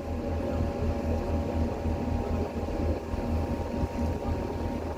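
A boat's engine running steadily, a low drone with a few faint steady tones over it.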